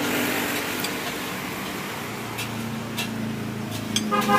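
Road traffic: motor engines running steadily past, their hum growing a little about halfway through, with a few sharp metallic clinks and a short high-pitched tone near the end.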